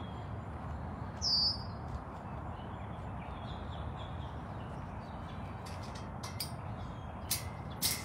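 Outdoor ambience with a steady low rumble, broken about a second in by a single short, high, falling bird chirp, the loudest sound here; a few faint clicks follow near the end.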